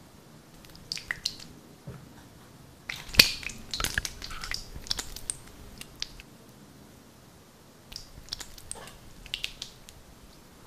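Black slime being stretched and squeezed by hand, giving off wet clicks and pops in clusters, loudest about three seconds in.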